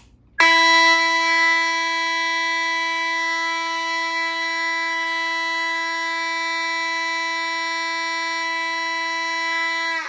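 Vintage Simplex 2903 fire alarm light plate with a 9806 horn sounding a continuous, loud alarm blast: one steady pitch, rich in overtones. It starts about half a second in and cuts off near the end. It is an aged horn that the owner says isn't doing too well, with its volume screw adjusted.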